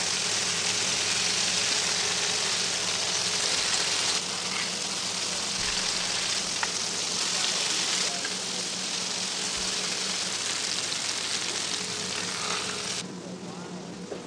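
Beef patties and onion slices sizzling on a hot flat-top griddle, a steady frying hiss. The sizzle drops away sharply near the end, leaving a steady low hum.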